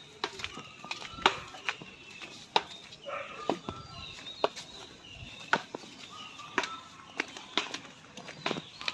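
Footsteps in flip-flops slapping on a wet, muddy path, about two steps a second, with faint bird calls in the background.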